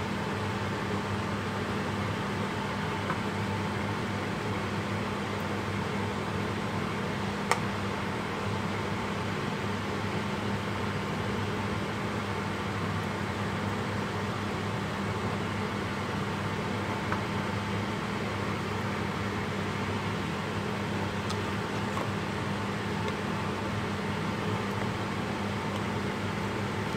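Steady hum of a running fan with a low drone underneath, and a few light clicks of a metal spoon against a stainless-steel pot. The sharpest click comes about seven seconds in.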